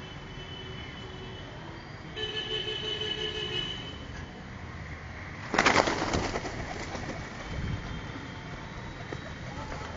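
Feral pigeons cooing as they feed, with a loud flurry of wingbeats a little past halfway as a pigeon flaps close by.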